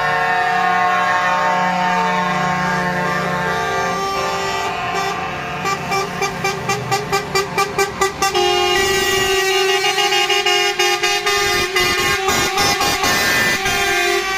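Truck air horns blaring together in a long, continuous chord of several pitches over passing lorry engines. In the middle one horn sounds in quick repeated toots, about three a second, for a few seconds.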